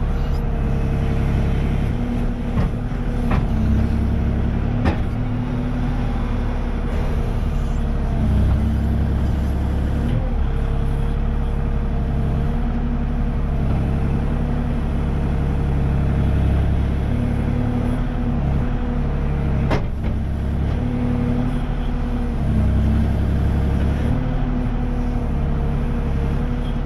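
Kubota KX040 mini excavator's diesel engine running steadily under hydraulic load while the bucket grubs out stumps and palmetto roots, its low rumble swelling and easing as the hydraulics work. A few sharp knocks come through, about three seconds in, at five seconds and near twenty seconds.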